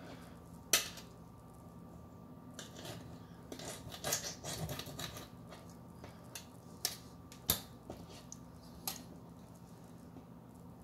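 Fillet knife tapping and clicking against a cutting board while trimming fish fillets: a few sharp, separate clicks, with a busier stretch of scraping and slicing about four to five seconds in.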